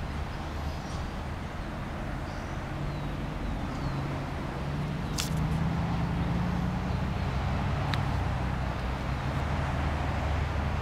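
Steady low engine rumble with a hum that rises a little for a few seconds in the middle. A sharp click about five seconds in and a fainter one near eight seconds.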